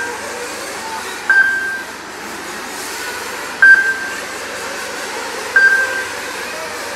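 Several nitro-engined radio-controlled off-road cars run together round the track, a steady high buzz of small engines. Over it come four brief, loud single-pitch tones, one every two seconds or so.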